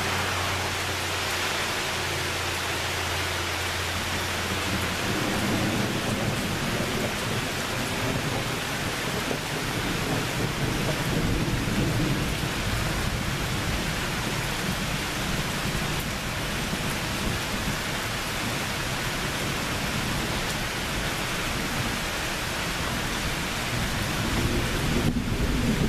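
Steady rain falling, with thunder rumbling low through most of it and growing a little louder near the end.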